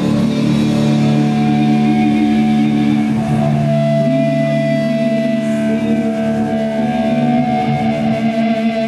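Doom metal band playing live: distorted electric guitars and bass ringing out long sustained chords, with a woman's voice holding a long steady note over them from about halfway through.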